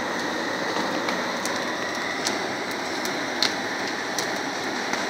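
Red peppers crackling and popping as they roast in the turning mesh drum of a rotary pepper roaster: sharp, irregular pops scattered over a steady rushing noise.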